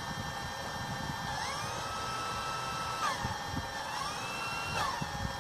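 Small electric drone motors whining as they are run up, held and run down twice, the pitch rising and falling each time, over a steady electrical hum.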